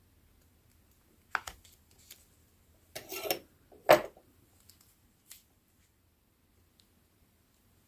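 Paper and a small leather-covered notebook being handled by hand: a light click, then a short paper rustle about three seconds in and a louder tap with rustle just after, followed by a few faint clicks.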